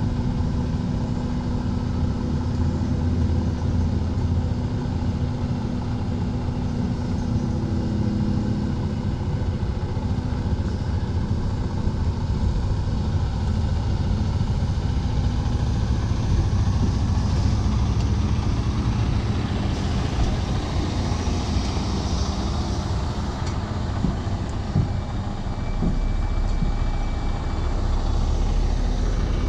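Semi truck's diesel engine running with a steady low rumble as the tractor-trailer pulls slowly past.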